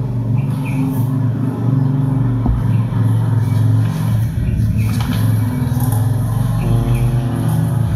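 A loud, steady, low mechanical drone. A second, higher hum joins it briefly near the end.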